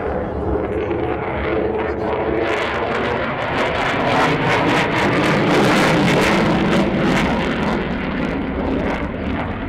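F-22 Raptor's twin Pratt & Whitney F119 turbofan engines: a loud jet roar with a crackle that builds to its loudest about halfway through, then eases as the jet pulls away.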